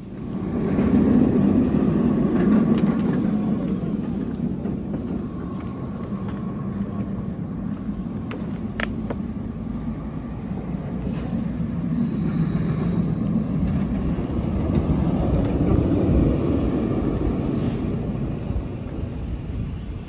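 B&M launched roller coaster (Mandrill Mayhem) on a test run, its train rumbling along the steel track. The rumble is loudest about a second in, eases off, then swells again about three-quarters of the way through.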